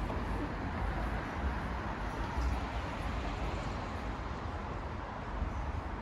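Outdoor city ambience: a steady background hum with a fluttering low rumble, typical of distant road traffic.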